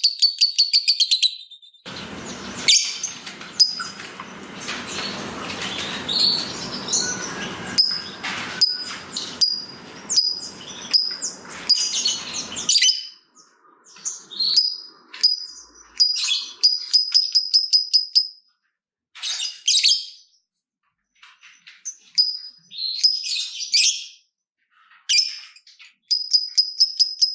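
Lovebird calling: a fast run of short, high chirps, about seven a second, at the start and again near the end, which is the 'ngetik' ticking call used as a lure. In between come scattered chirps, over a steady background noise for the first half and with short silences after it.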